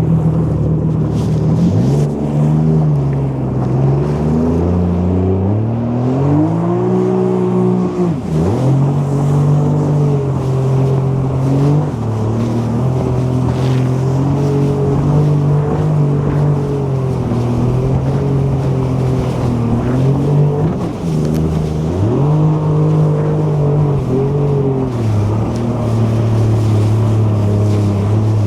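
Jet ski engine running under varying throttle, its pitch climbing and falling as the rider speeds up and eases off. It drops off sharply and picks back up about eight seconds in, and again about three quarters of the way through.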